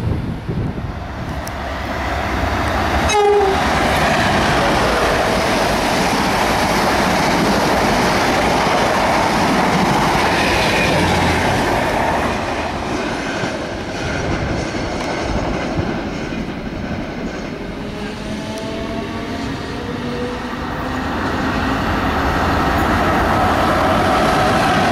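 A locomotive-hauled express passenger train running through the station on the far line, with heavy wheel and rail noise; a brief horn toot sounds about three seconds in. Near the end a Class 90 electric locomotive hauling a container freight train draws close on the near line, a rising whine over the rail noise.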